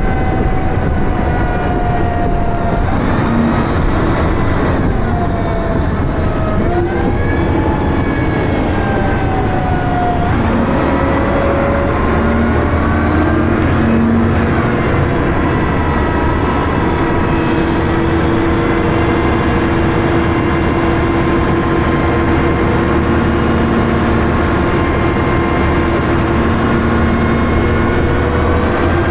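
Dennis Arrow double-decker bus heard on board while moving: a loud engine rumble with a whine from the engine and ZF automatic gearbox. The whine rises and falls in pitch several times in the first half, with a marked drop about ten seconds in, then holds fairly steady.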